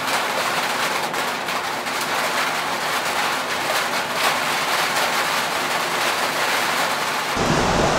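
Heavy rain pouring down onto the lake, a steady dense hiss of a thunderstorm downpour that cuts off abruptly near the end.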